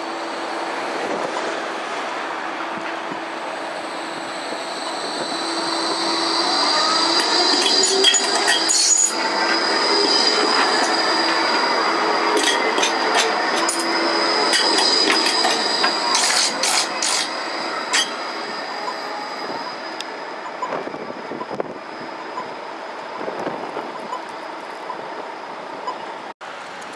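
G:link light-rail tram passing close and rounding a curve. Its wheels give a steady high squeal through the middle, with a run of sharp clicks from the wheels and track, and the noise swells as it passes, then fades as it moves away.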